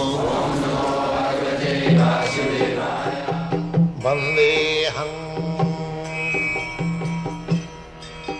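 Indian devotional intro music: chanting voices at first, then drum strokes in a steady rhythm over a sustained drone and melody.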